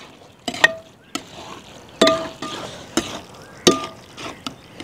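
A metal ladle stirring thick beef curry in a large metal cooking pot, scraping through the gravy. It knocks against the pot three times, and each knock leaves a brief metallic ring.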